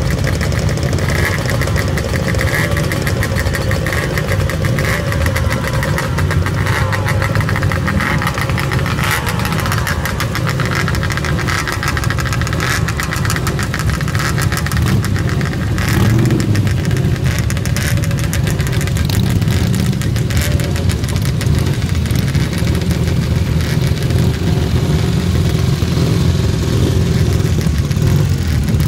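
Several classic motorcycle engines idling together in a queue, with a throttle blipped now and then.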